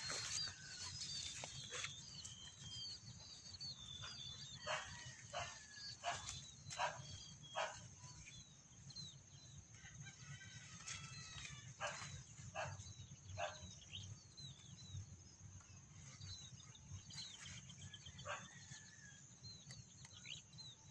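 Rural farm ambience: small birds chirping again and again over a steady high insect buzz, with short clucking calls from chickens scattered through.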